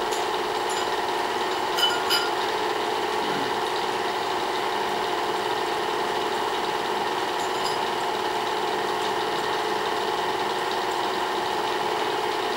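Small-gauge (Super 8) film projector running with a steady mechanical hum. Two short clicks sound about two seconds in.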